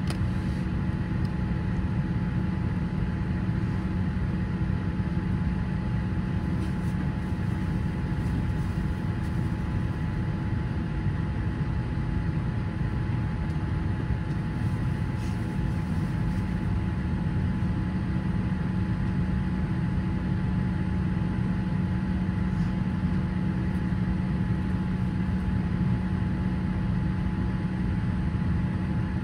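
Steady cabin noise inside a Boeing 787-8 airliner during pushback: a constant hum with several steady whining tones that do not change.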